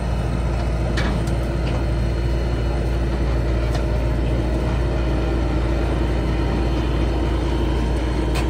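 Bobcat T595 compact track loader's diesel engine running steadily under load as it climbs onto a steel-framed flatbed trailer, with a few sharp metallic clanks, about a second in, near four seconds and twice near the end.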